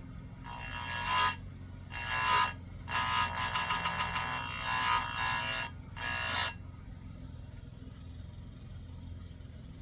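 Chainsaw chain being sharpened on an electric chain grinder: the grinding wheel screeches against the cutter teeth in four passes, two short ones, a long one of nearly three seconds, and a short last one, over a low steady hum.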